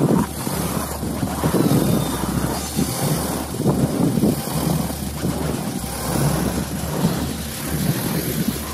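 Vehicle engine running while driving over rough ground, with wind rumbling and buffeting on the microphone in uneven gusts.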